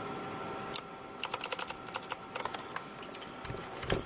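Typing on a mechanical keyboard fitted with dye-sublimated PBT keycaps (Monstargear Ninja). An irregular run of quick key clacks starts about a second in.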